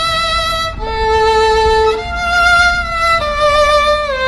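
Background music: a violin playing slow, held notes that step to a new pitch about once a second.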